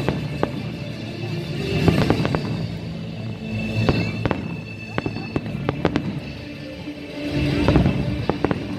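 Aerial fireworks shells bursting in a quick, irregular series of sharp bangs, over steady music.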